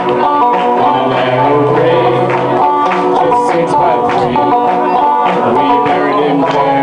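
Two banjos played together in a live country-style tune, with steady plucked picking.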